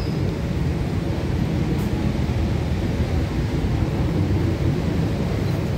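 Steady low rumble of an MTR Kwun Tong line C-Train standing at an underground platform with its doors open.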